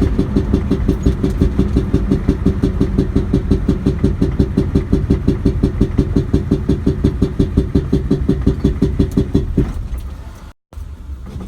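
Indirect-injection (IDI) diesel engine idling with a rapid, even, pulsing knock, which the owner calls a bad sound. The engine stops about nine and a half seconds in.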